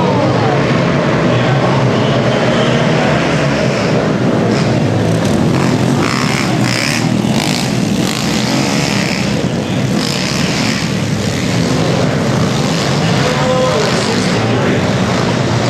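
A pack of small 12-inch-wheel pit bikes racing off the start together, their engines revving hard in one dense, continuous drone. Single engines can be heard rising and falling in pitch near the start and again late on.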